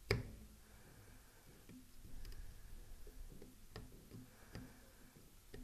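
Faint scattered clicks and taps of pliers and a soldering iron handled against a small quadcopter's wires and frame during soldering, with one sharper click right at the start.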